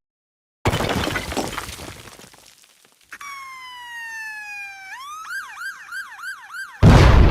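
Cartoon sound effects: a crash-like noisy burst that fades away, then a whistle sliding slowly down in pitch, then a fast wavering siren-like whoop about three times a second, cut off by a sudden loud bang near the end.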